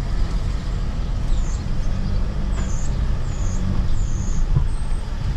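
Hymer motorhome's Mercedes diesel engine driving slowly, heard from inside the cab as a steady low rumble, with a few short high chirps over it.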